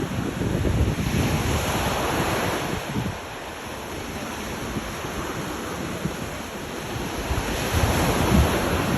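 Sea waves washing onto the shore, swelling louder in the first few seconds and again near the end, with wind buffeting the microphone.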